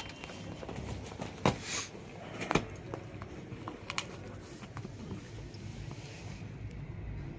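A beagle chewing and tearing at a cardboard box: scattered sharp crackles and rips of cardboard, the loudest about one and a half and two and a half seconds in.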